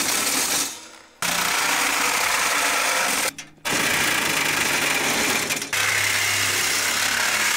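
Handheld cordless power tool running hard in long bursts, stopping briefly about a second in and again about halfway.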